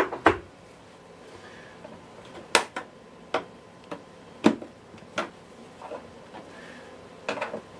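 Screwdriver tip clicking and knocking against the hard plastic trim and case of a Miele S8 cylinder vacuum cleaner as the trim's clips are levered into their holes: about eight sharp, irregularly spaced clicks.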